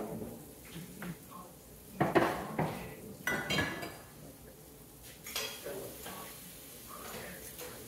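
Dishes and cutlery clattering and clinking as they are handled, in several separate bursts with short ringing, the loudest about two seconds in.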